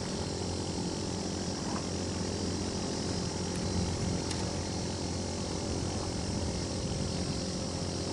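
A steady engine drone, an even hum of several tones that holds without change.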